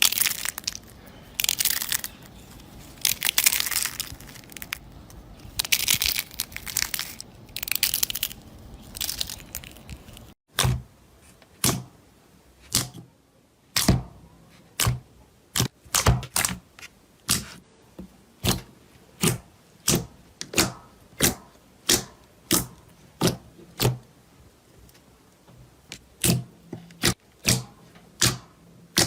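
Slime being squeezed and played with by hand: dense crackling and popping in bursts, then, after a sudden cut about ten seconds in, a steady series of sharp pops about one and a half a second.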